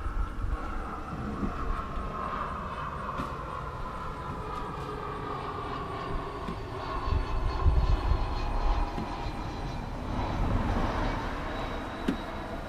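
Continuous mechanical rumble from a large vehicle or machine, with a steady whine that slowly drops in pitch over several seconds.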